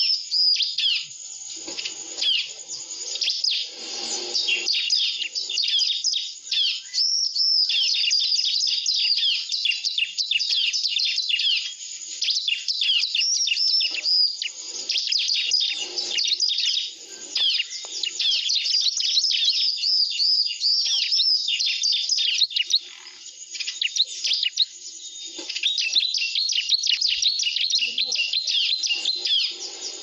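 Rapid, continuous chirping and trilling of bar-winged prinias (ciblek), consistent with a ciblek lure-call recording played to draw the birds to the glue-smeared perch. The calls pause briefly twice.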